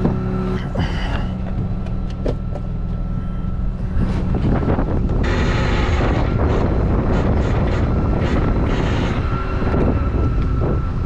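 Rollback tow truck's engine running steadily with a thin steady whine while a car is let down the tilted bed. A louder rushing noise joins about four seconds in.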